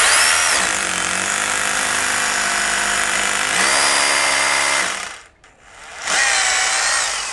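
Hyundai 20mm SDS Plus rotary hammer in hammer-plus-drilling mode boring into a wall. A loud run of about five seconds, a brief stop, then a second, shorter burst near the end.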